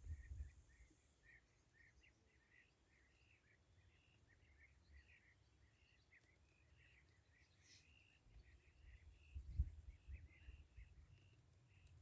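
Faint, irregular chirping of small birds, with low bumps and rumble shortly after the start and again about nine to ten seconds in.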